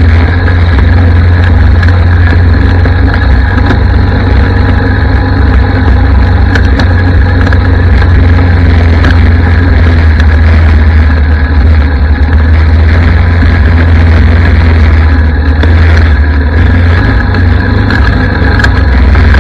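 Yamaha ATV's single-cylinder four-stroke engine running steadily under way on a trail, loud and heavy in the low end.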